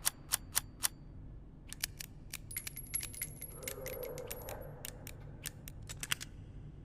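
Revolver mechanism being handled: four quick sharp metallic clicks, then a longer run of scattered clicks and light metallic clinks, with a thin high ring in the middle.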